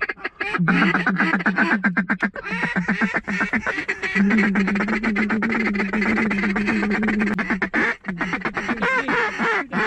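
Hunters' duck calls blown in a rapid, continuous chatter of short quacking notes, with a steadier held tone through the middle and a short break about eight seconds in: calling to draw incoming ducks to the decoys.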